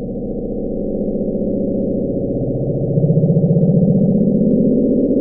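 Low, rapidly pulsing electronic rumble, all deep tones, that swells about three seconds in as its pitch slowly rises: a sound-designed rendering of the 'Bloop' ultra-low-frequency underwater sound.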